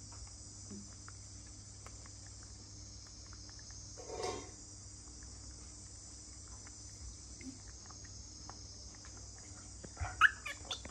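Steady high-pitched chirring of insects. A brief call cuts in about four seconds in, and a few short squeaky calls come near the end.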